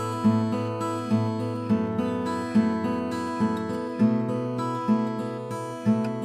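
Background music: acoustic guitar strummed in a steady, even rhythm.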